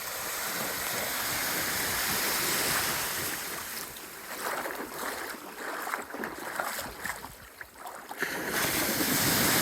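Surf washing onto a beach: a rushing swell of water that eases off about four seconds in, turns choppier, and builds again near the end.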